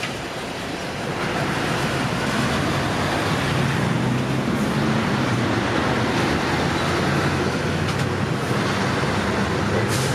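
Electric train running along the track: a steady rumble of wheels with a low hum, growing louder about a second in.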